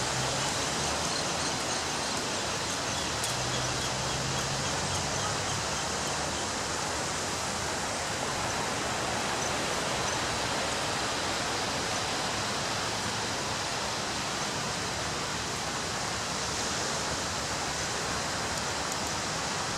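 Ocean waves breaking on a beach, heard as a steady, even wash of surf.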